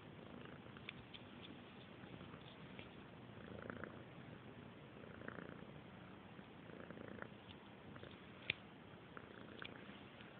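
Domestic cat purring softly, swelling and easing with its breathing about every second and a half. A few faint clicks, with one sharper click about eight seconds in.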